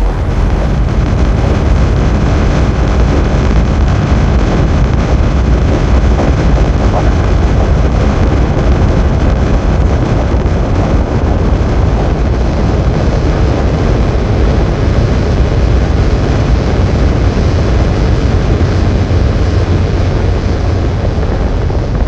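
Designed sci-fi sound effect of a giant alien mothership's engines: a loud, steady, dense rumble with a deep low end and a rushing hiss over it.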